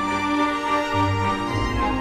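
Background music: held melodic tones over a low bass line that changes note about every half second.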